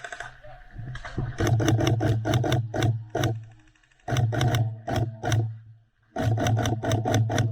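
Airsoft electric gun firing full-auto in three bursts: a rapid even clatter of shots over the hum of the gearbox motor. The bursts start about a second in, about four seconds in and about six seconds in, with short pauses between.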